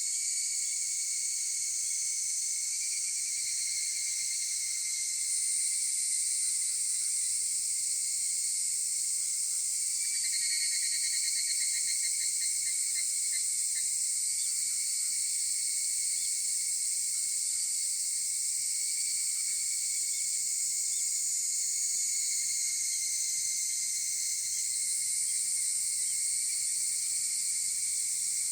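Chorus of higurashi (evening cicadas, Tanna japonensis) and other insects calling together: a dense, steady, high-pitched shimmer of overlapping calls. About ten seconds in, a rapidly pulsed trill stands out for roughly four seconds.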